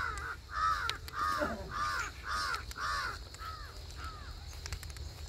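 A crow cawing over and over, about two caws a second, the calls growing weaker and stopping a little past four seconds in.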